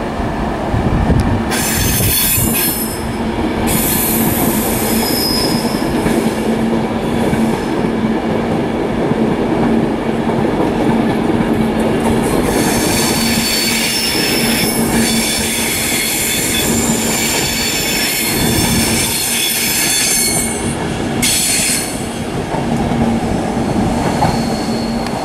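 Avanti West Coast Class 390 Pendolino electric train passing with a steady rumble of wheels on rail and a steady low hum. Its wheels squeal high-pitched on the rails: briefly about two seconds in, for a long stretch in the second half, and once more briefly near the end.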